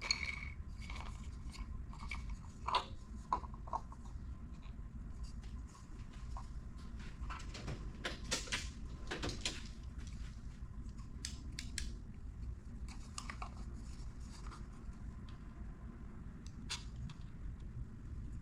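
Light clicks, taps and scrapes of 3D-printed plastic whistle parts being handled and fitted together, over a steady low hum.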